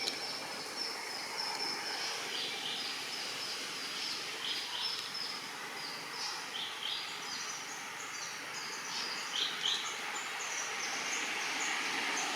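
Outdoor ambience: a steady hiss with many short, high chirping calls scattered throughout, each a quick falling sweep.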